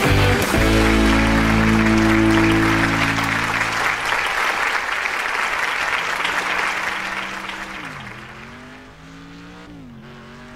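Music with held chords fades out over the first few seconds above a loud, even rushing noise. From about six seconds in, a racing video game's car engine revs up through the gears, its pitch climbing and dropping back at each shift, about twice.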